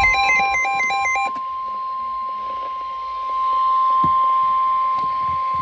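Weather-radio emergency alert tone: one steady, loud single-pitch tone of about 1 kHz, matching the 1050 Hz warning alarm tone that precedes a National Weather Service warning broadcast. For the first second or so a stepping series of higher beeps sounds over it, and the tone grows louder about three seconds in.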